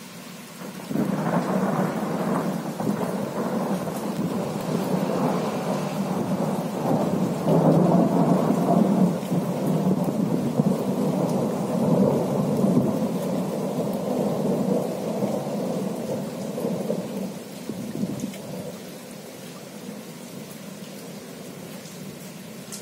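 Thunder from a squall-line thunderstorm: a long rolling peal that breaks in suddenly about a second in, swells and rumbles on for some fifteen seconds, then fades away.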